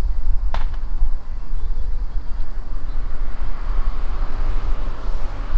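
Wind buffeting the microphone: a steady low rumble, with a single sharp click about half a second in.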